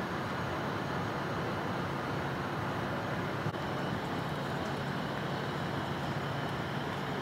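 Steady rumble of an idling vehicle engine with a constant hiss, broken by a brief dropout about three and a half seconds in.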